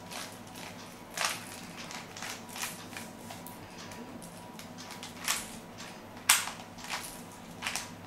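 Plastic Rubik's Cube being twisted layer by layer, giving irregular clacks and scrapes of the turning faces, the loudest about six seconds in.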